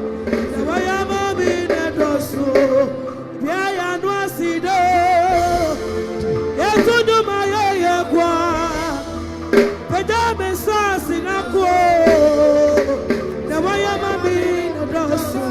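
A voice singing a slow worship song with vibrato over sustained keyboard-style accompaniment.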